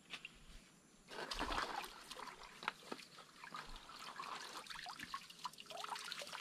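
Water splashing and pouring off a hand sieve worked through shallow lagoon water while catching shrimp, starting about a second in, then scattered drips and small trickles.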